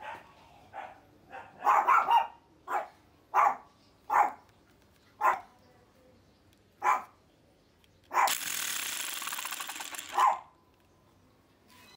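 A dog barking a dozen or so times at irregular intervals. About eight seconds in, a rotary hammer chipping gun runs for about two seconds with a fast, dense rattle.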